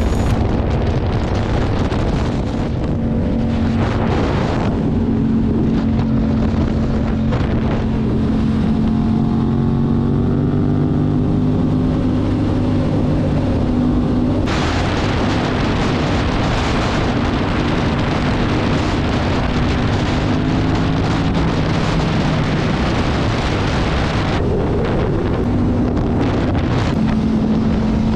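Yamaha MT-07's parallel-twin engine running at a steady highway cruise, its note shifting slightly mid-way, under heavy wind rush on the microphone. The wind rush grows much louder about halfway through and drops back a few seconds before the end.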